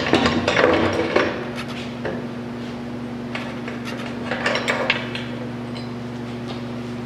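Metal transmission parts clinking and knocking as gears and a shaft are worked by hand into the aluminium case of a Polaris Scrambler 1000 transmission: a flurry of clatter at the start and another a few seconds in, over a steady low hum.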